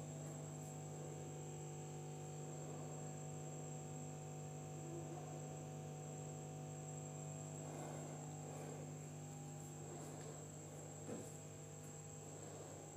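Steady low electrical hum with a faint, steady high-pitched tone above it: background room tone, with a small tick about eleven seconds in.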